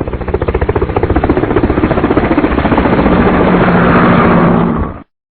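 An engine running with a fast, even pulse, growing louder toward the end and then cutting off suddenly.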